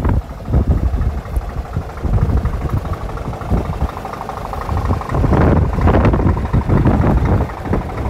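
Wind buffeting the microphone, swelling in gusts about two thirds of the way through, over the low steady run of a Scania R500 truck's diesel engine idling.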